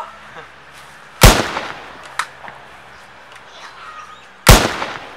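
Two handgun shots about three seconds apart, each a sharp crack with a short echoing tail.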